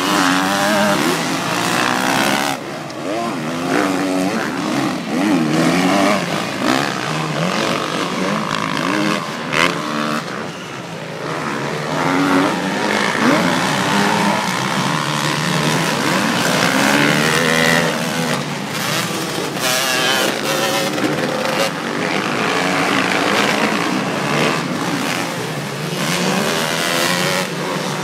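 Several motocross bikes racing on a dirt track, their engines revving up and down over and over as the riders accelerate, shift and back off, the pitches overlapping.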